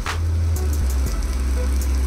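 Background music: a deep bass line stepping from note to note, with a sharp percussion hit at the start and again about two seconds later.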